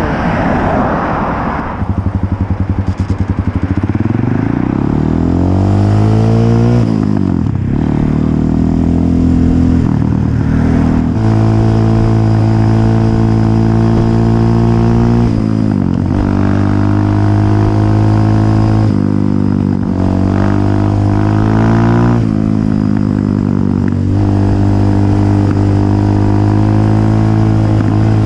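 Kayo dirt bike engine pulling away and accelerating through the gears. Its note climbs in pitch and drops back at each gear change several times, then holds steady at cruising speed.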